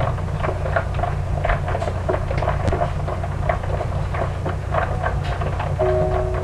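Light kitchen clatter, scattered small clicks and knocks, over a steady low hum.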